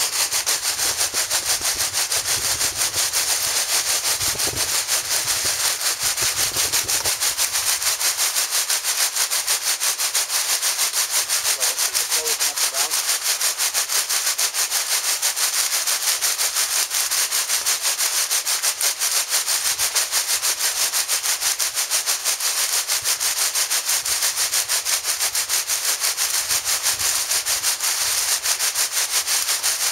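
Flexible-auger coal feeder running: the auger spiral turning inside a 1.5-inch flex hose and damp coal pouring from the hose end into a plastic cooler. It makes a steady, fast, grainy rasp.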